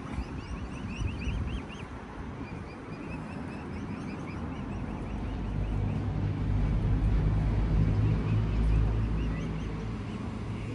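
Mute swan cygnets peeping, quick series of short rising cheeps, over the low engine rumble of a passing vehicle that swells about six seconds in and eases off near the end.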